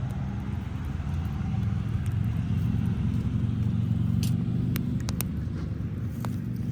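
A car engine running close by, a low steady hum that swells and eases again, with a few sharp pops and crackles from the wood fire about two thirds of the way in.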